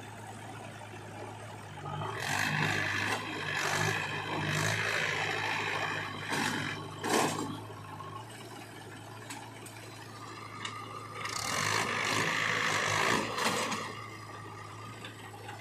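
JCB 3DX backhoe loader's diesel engine running steadily beside a red Mahindra tractor, with louder surges of working noise and soil spilling as the backhoe bucket unloads into the tractor trolley, about two to seven seconds in and again around eleven to thirteen seconds. A sharp knock about seven seconds in.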